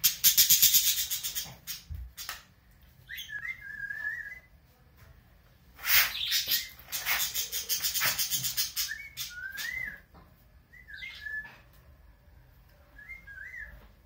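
A person whistling short gliding phrases several times, answered by budgerigars' scratchy chattering warble in two bursts: one in the first second and a half, one from about six to eight and a half seconds in. The budgie is responding to a whistle it recognises.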